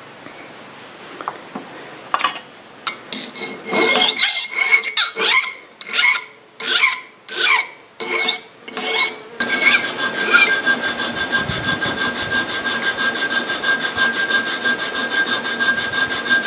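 Hand file cutting notches into the edge of a cold-forged spoon-metal arrowhead held in a wooden vise. About eight separate strokes come first. Then, about nine seconds in, the file switches to fast short strokes, about six a second, with a steady metallic ring.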